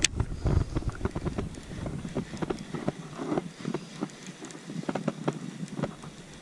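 Irregular light clicks and taps from hands working a baitcasting rod and reel. Wind buffets the microphone with a low rumble that drops away about halfway through.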